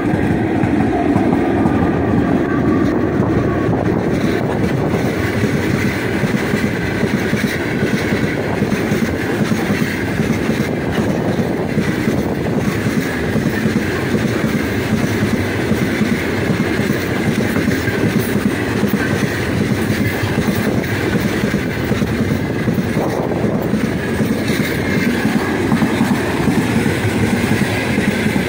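Long freight train hauled by 2ES5K 'Ermak' electric locomotives passing close by. The locomotive sections go past first, then the open freight wagons follow with a loud, steady rumble and clatter of wheels over the rails.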